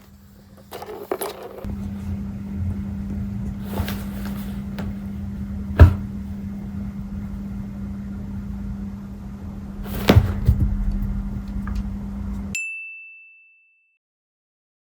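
A household appliance's steady electrical hum, with a few sharp knocks over it. The hum cuts off and a single high beep sounds near the end, like an appliance finishing its cycle.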